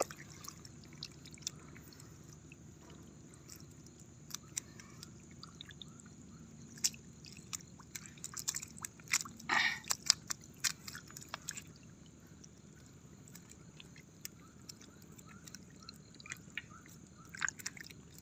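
Faint scatter of small wet slaps and squishes from dozens of small seluang fish flapping on wet mud, with a denser burst of squelching about nine and a half seconds in.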